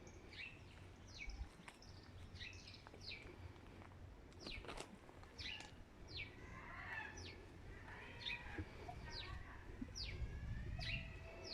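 Small birds calling: a string of short, sharp chirps that fall in pitch, about one or two a second, with softer twittering in the middle, over a faint low rumble.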